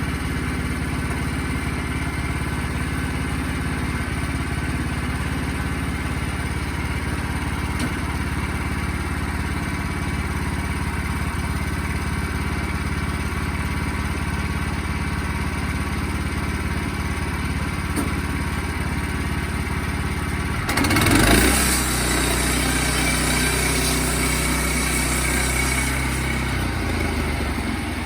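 Sawmill engine running steadily. About twenty seconds in, a louder stretch of several seconds begins, with a hissing, rasping noise over a changed engine note, then it eases back.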